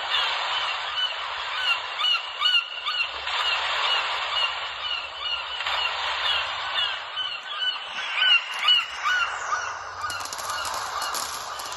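Samsung Galaxy phone ringtone of recorded bird calls: many short calls overlapping over a steady hiss, thinning out near the end.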